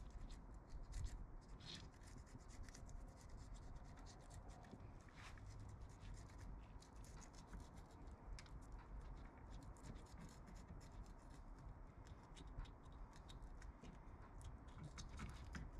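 Serrated fillet knife sawing through a sheepshead's heavy scales and skin: faint scratchy rasping with many small clicks throughout.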